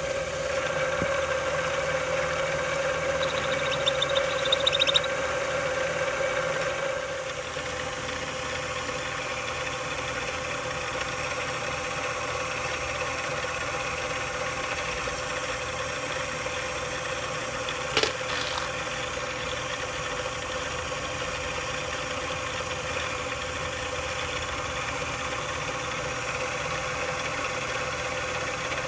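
Mini lathe motor running with a steady whine while 5.56 brass cases are worked on it: a brief high scraping of metal cutting about three to five seconds in, then steady running as a case's primer pocket is cleaned against the spinning tool, with one sharp click partway through.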